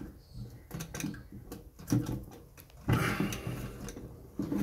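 Scattered clicks and knocks of a hand working the cistern's quarter-turn isolation tap, turning it 90 degrees to shut off the water supply; the loudest knock comes about three seconds in, followed by a brief rustle.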